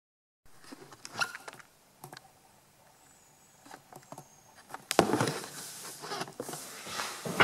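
Handling noise from the camera as it is adjusted by hand: scattered clicks and knocks of fingers on its body, then from about five seconds in louder rubbing and scraping close to the microphone.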